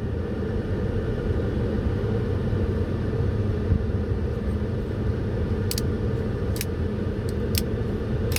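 Steady low rumble, like a running vehicle, with about five short sharp clicks in the last few seconds.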